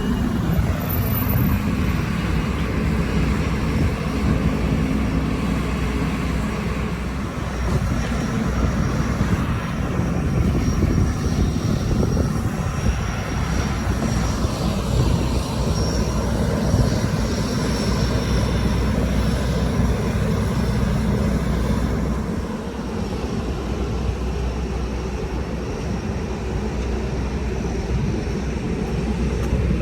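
Airplane engines running at an airport apron: a steady engine noise with a faint high whine, easing slightly about two-thirds of the way through.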